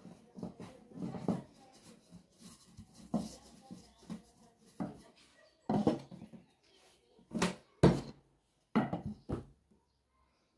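Wooden rolling pin and hands working pastry dough on a wooden board: irregular soft knocks, rolls and rubs, with several sharper wooden knocks in the second half.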